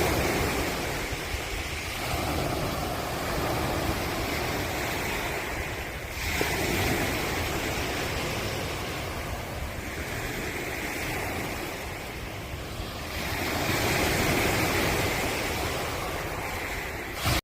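Ocean waves breaking and washing in, the noise swelling and easing again every several seconds.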